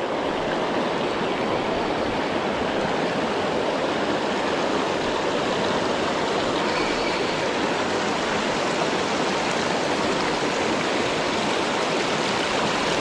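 Shallow river rapids rushing over rocks and boulders: a steady, even sound of running water that does not change.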